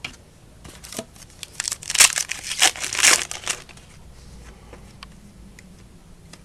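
Crinkling and rustling of a trading-card pack's wrapper being handled and torn, in a quick cluster of bursts about two seconds in, then stopping.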